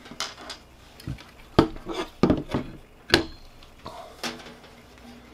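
Handling noise: a series of knocks and light clatter as a DVR circuit board and small items are picked up and set down on a work mat, the sharpest knocks about a second and a half and three seconds in.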